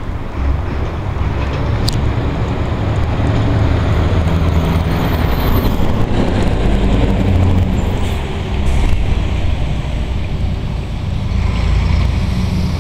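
Scania torpedo truck's V8 diesel engine pulling along the road, a deep engine note that shifts in pitch as the truck moves.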